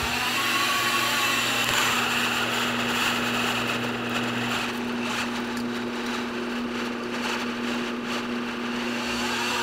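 Countertop blender-style mixer's motor running steadily with a constant hum while kneading a batch of pizza dough in its jar.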